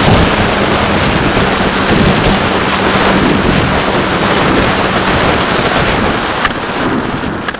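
Wind rushing over the onboard camera microphone of a SkyHunter FPV plane in low, fast flight, with the steady hum of its electric motor and propeller underneath. The hum stops about five seconds in, leaving only the wind noise.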